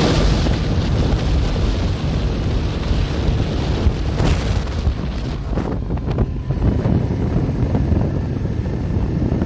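Wind buffeting the microphone over a loud, steady low rumble, cutting in abruptly.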